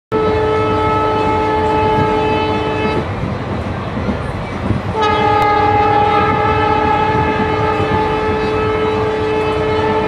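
Train horn blowing twice over the rumble of a running train: one blast for about three seconds, a short gap with only the running noise, then a long steady blast from about halfway through.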